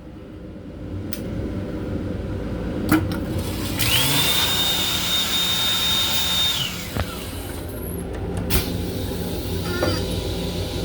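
Train-car toilet flushing on an M7 railcar: a loud rushing whoosh with a high whine that rises, holds for about three seconds and falls away. The car's steady running rumble continues underneath, with sharp clicks before and after the flush.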